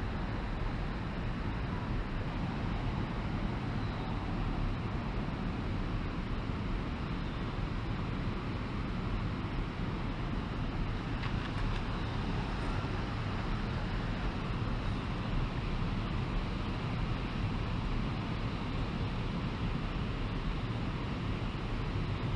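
Steady rushing noise of a river's current over shallow riffles, mixed with wind on the microphone, holding an even level throughout.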